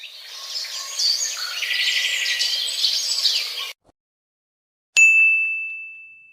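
High, busy chirping that stops suddenly, then after a second of silence a single bright ding, a sound-effect bell, struck once about five seconds in and ringing out over about a second and a half.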